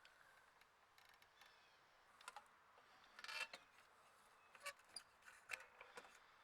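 Faint clicks and taps of small plastic parts being handled: a short cluster about three seconds in, then several single clicks spaced about half a second apart.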